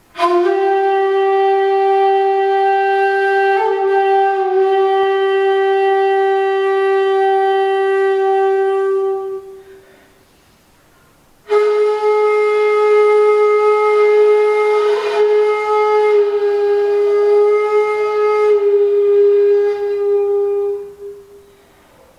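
A 1.8 shakuhachi, the Japanese end-blown bamboo flute, playing slow solo honkyoku: two long held notes of about nine seconds each, with a pause of about two seconds between them. The second note sits slightly higher, and both have small pitch bends before fading out.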